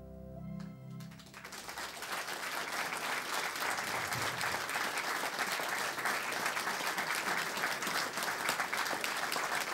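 A band's last held chord fades out, then audience applause starts about a second in, builds, and goes on steadily.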